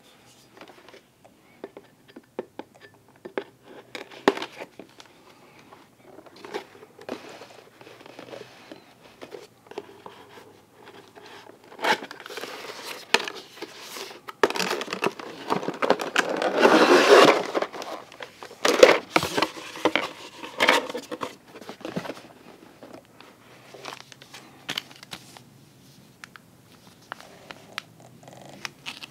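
Cardboard toy packaging being handled with scattered taps and rustles, louder rustling and crinkling of packaging in the middle. Near the end comes light crinkling of a clear plastic bag that holds the instruction booklet.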